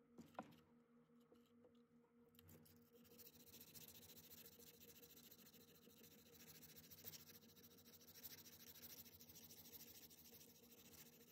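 Hand sanding of a metal compass-protractor arm with a small sanding pad: faint, quick scratchy back-and-forth strokes that start about two and a half seconds in. A single light tap comes just after the start.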